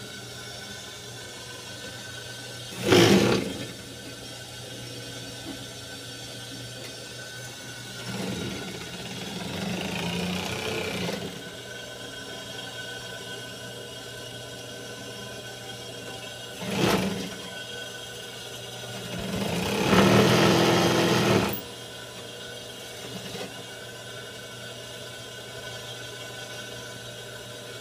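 Juki industrial sewing machine stitching in four runs, two brief and two lasting a few seconds, the last one the loudest, with a steady hum between the runs.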